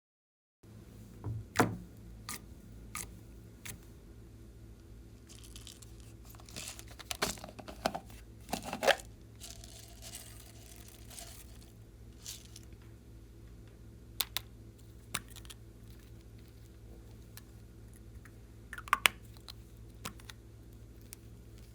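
Slime being handled, giving scattered crackles, pops and sharp clicks over a low steady hum, with a denser run of crackling about seven to nine seconds in.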